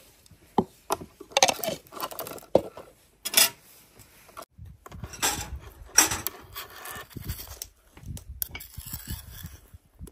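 Metal spoon and steel skewers knocking and scraping on a wooden serving board as grilled food is arranged: irregular clicks and knocks.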